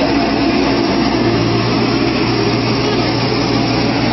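A large engine running steadily, a constant low drone with no change in pitch or level.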